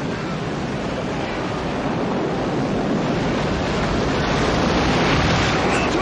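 Storm at sea in a film soundtrack: steady wind and rough waves, swelling louder about four seconds in.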